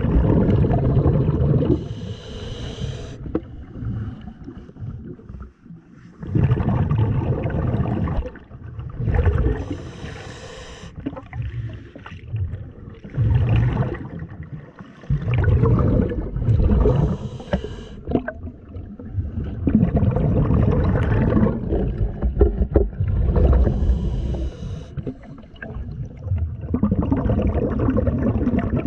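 Irregular surges of low rumbling and bubbling every few seconds, picked up underwater, with a short hiss on top of a surge about every seven seconds.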